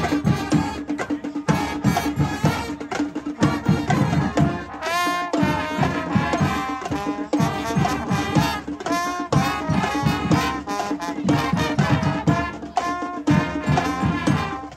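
Marching band hornline of trumpets, trombones and a sousaphone playing a loud, lively tune over a fast, steady drum beat.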